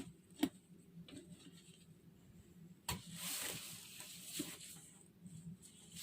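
Dirty clothes being handled and gathered up: faint rustling of fabric, with a sharp knock about half a second in and a longer rustle starting about three seconds in.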